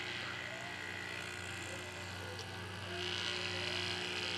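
Fog machine's small electric fluid pump running with a steady hum, a hiss growing louder about three seconds in; the pump runs but moves too little fog fluid.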